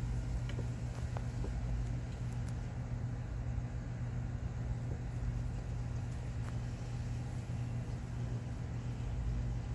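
Steady low mechanical hum with rumble underneath, unchanging throughout, with a few faint ticks.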